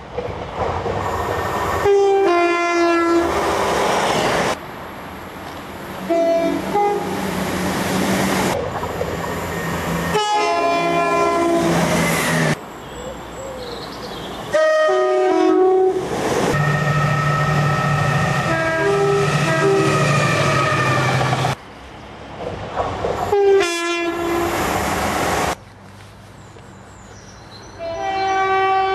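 A run of train horn blasts from several recordings joined by abrupt cuts. Many are two-tone horns sounding a higher note and then a lower one, with train running noise between the blasts.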